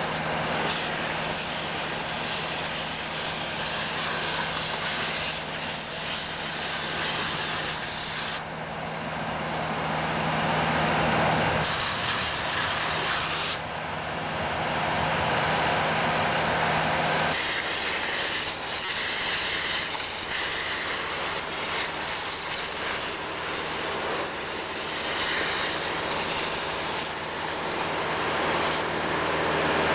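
Trailer-mounted vacuum excavator running: a steady loud rush of air and machinery with a constant low hum. The sound changes abruptly about 12 and 17 seconds in.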